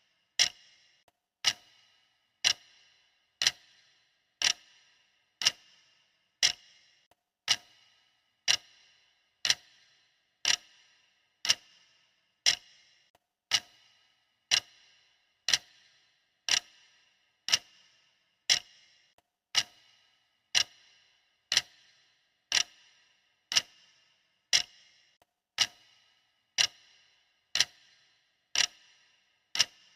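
Clock-style ticking sound effect of a stopwatch timer: a sharp tick about once a second, steady and even, each with a short ring after it.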